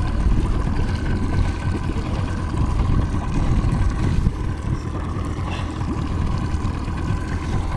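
Mercury outboard motor running steadily behind a trolling boat, with wind rumbling on the microphone.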